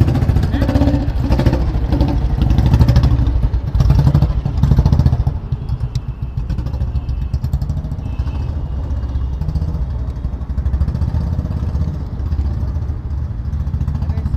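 An engine idling steadily, louder for the first five seconds and then a little quieter.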